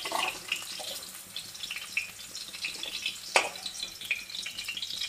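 Potato cubes sizzling in hot mustard oil in a wok while a slotted metal spatula scoops them out, with a crackling spatter throughout. A sharp metal clink sounds about three and a half seconds in as the spatula knocks against metal.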